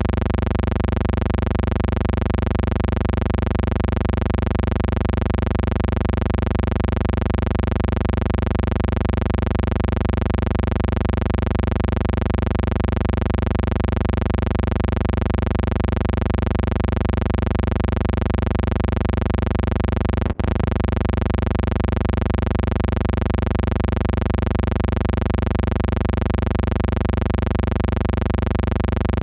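Steady electrical hum with many overtones, unchanging in pitch and level, cutting out for an instant about twenty seconds in. It is a noise on the film transfer, not a sound from the scene.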